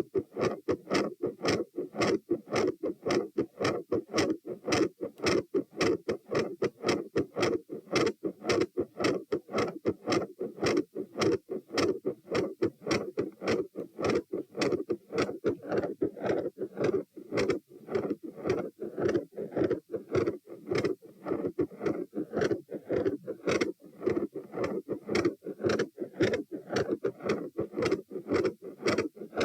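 Human heart beating fast and loud, about two beats a second (108–120 bpm), each beat a pair of heart sounds. A murmur sounds around the second heart sound, an intermittent machinery-like murmur.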